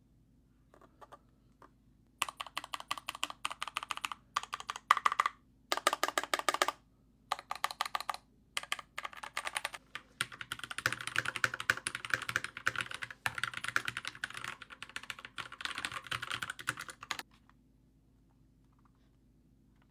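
Typing on a Keychron K2 mechanical keyboard. Bursts of keystrokes with short pauses begin about two seconds in, then run as faster continuous typing, and stop a few seconds before the end.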